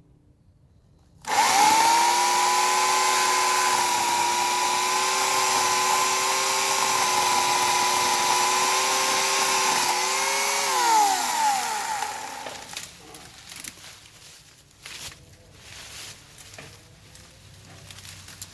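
Portland 14-inch electric chainsaw starting abruptly and running at a steady whine while cutting wood, then winding down with a falling pitch about ten seconds in as the trigger is released. A few light knocks follow.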